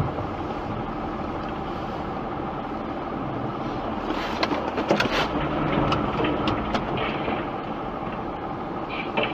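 Steady road and engine rumble of a moving car, heard inside the car's cabin, with a run of sharp clicks between about four and seven seconds in.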